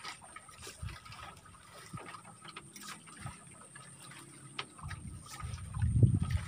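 Water lapping and trickling against a bamboo raft, with scattered small clicks of handling. A louder low rumble swells near the end.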